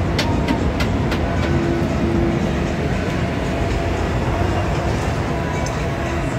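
Steady low rumble of busy street background noise. A few sharp clicks come in the first second, and a steady hum joins about a second and a half in.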